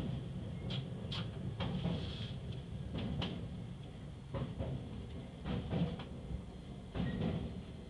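Train wheels clattering over points and rail joints: a dozen or so irregular clacks and knocks over the steady rumble of the running train, with a thin, steady high whine above.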